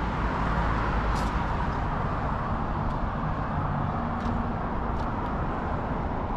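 Steady rumble of road traffic, with a few faint ticks.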